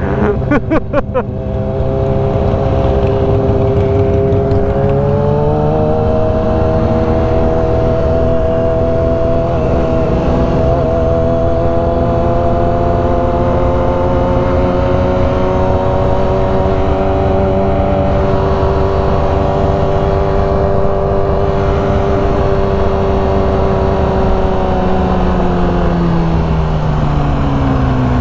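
Motorcycle engine at road speed. Its pitch climbs about five seconds in as the bike speeds up, holds steady with a slow rise, then falls near the end as the bike slows, over steady wind rush.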